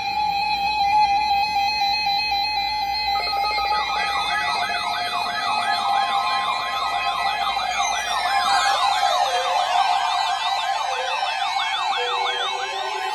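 A steady alert tone, then about three seconds in several NOAA weather radios start sounding their alarms at once, a mass of overlapping warbling siren tones set off by the weekly warning alarm test.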